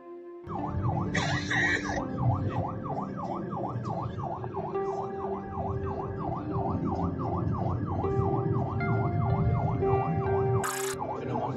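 Emergency vehicle's electronic siren in fast yelp mode, sweeping up and down several times a second, heard from inside the moving cab over engine and road rumble. It starts about half a second in. A short hiss comes about a second in and another near the end.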